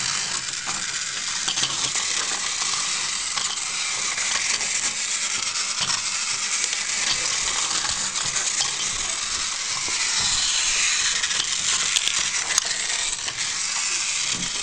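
Battery-powered toy Thomas the Tank Engine running along plastic track: a steady high whir of its small motor and wheels, with a couple of sharp clicks about twelve seconds in.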